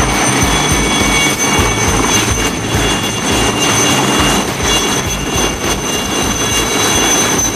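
Several Aérospatiale Alouette III helicopters hovering and taxiing close by, their turboshaft engines giving a steady high whine over the rush and low beat of the rotors.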